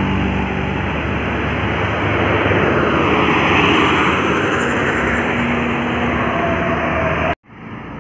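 Heavy diesel bus and truck engines labouring uphill and passing close by. The noise swells to a peak about halfway through, then cuts off abruptly just before the end.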